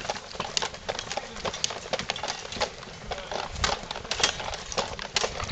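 Footsteps of several people walking briskly on a dirt path, with the gear they carry rattling, in an irregular patter of clicks and knocks.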